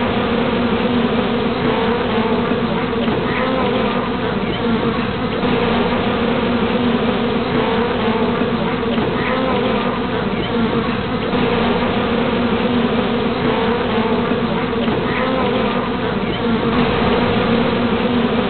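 A honeybee swarm buzzing: many bees together making a steady, unbroken drone.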